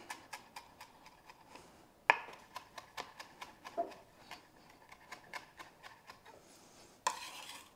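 Chef's knife finely chopping tarragon on a cutting board: quick, irregular taps of the blade on the board, a few a second, with one louder knock about two seconds in and a brief rasp near the end.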